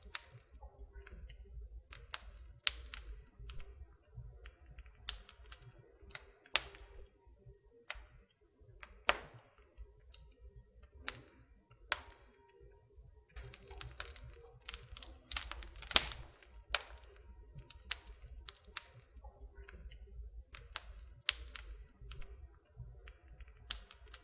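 Campfire crackling: wood burning with irregular sharp pops and snaps over a low steady rumble, the snaps coming thickest and loudest a little past the middle.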